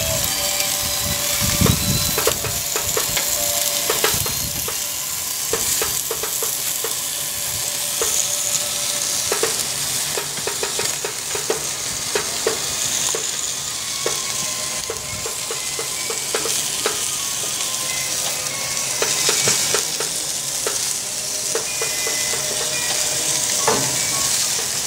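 Beef short ribs sizzling on a gas grill: a steady hiss with frequent crackles and pops of fat.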